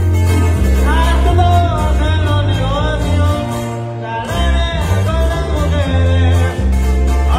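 Small live regional Mexican band playing: a booming electric bass, strummed acoustic guitars and a man singing. The bass drops out briefly about four seconds in, then comes back as the singing resumes.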